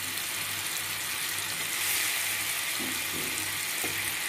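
Banana slices frying in melted butter in a pan: a steady sizzle.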